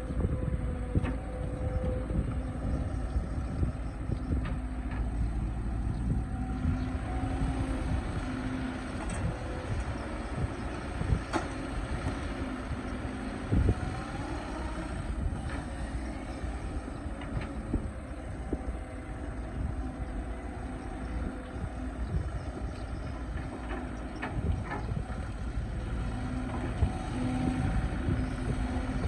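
Excavator's diesel engine and hydraulics running under load with a steady low rumble, a tone that comes and goes as the machine works, and a few sharp knocks.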